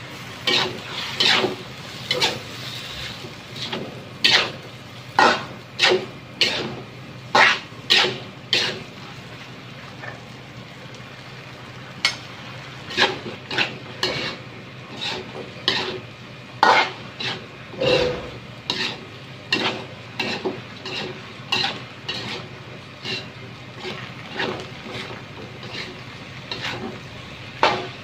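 Metal spatula scraping and clanking against an aluminium wok in irregular strokes as flat rice noodles are stir-fried, over a steady low frying sizzle. The strokes thin out for a couple of seconds about ten seconds in.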